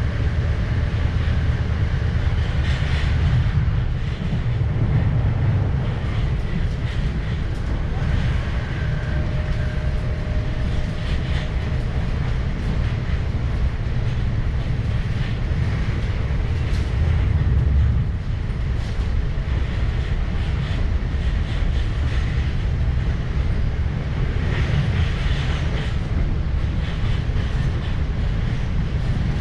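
Moving passenger train running on the track: a steady low rumble of the wheels, with scattered clicks as they pass over rail joints and points.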